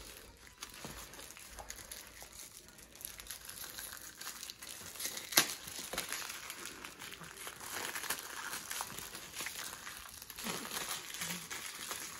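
Shiny metallic gift wrapping paper crinkling and tearing as a present is unwrapped by hand, with one sharp, loud rip about five seconds in.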